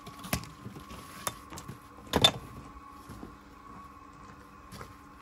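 Scattered knocks and taps of stone and tools while a stone wall is being laid, with the loudest few knocks close together about two seconds in, over a faint steady hum.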